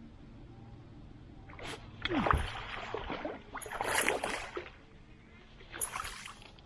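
Water splashing and sloshing in three short bursts, about two, four and six seconds in.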